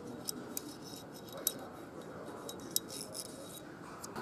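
A few light, sharp metallic clicks from small tools and parts handled on a V8 engine's camshaft and bearing cap during hand assembly, over a steady workshop background noise.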